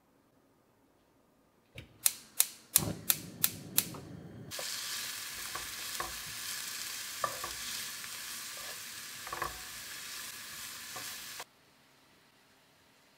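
About two seconds in, a quick run of about six sharp clicks; then chopped onion sizzles steadily in vegetable oil in a frying pan while a wooden spatula stirs it, with scattered knocks and scrapes of the spatula on the pan. The sizzling cuts off abruptly near the end.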